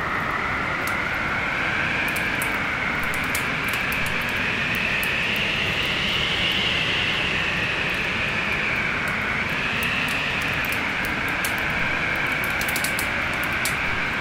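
Wood fire crackling with scattered sharp pops over a steady storm-wind roar whose pitch slowly rises and falls.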